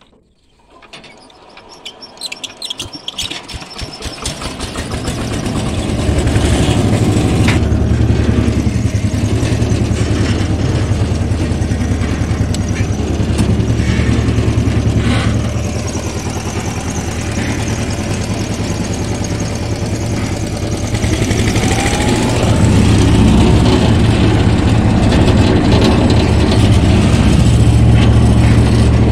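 Power tiller engine starting: separate chugs that speed up and grow louder over the first few seconds until it catches, then running steadily. A little past two-thirds of the way it gets louder and stays so.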